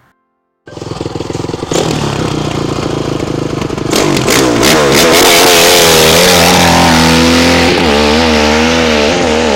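Motorcycle engine running loud, cutting in suddenly just under a second in, then revved up and down over and over in quick, wavering blips from about four seconds in.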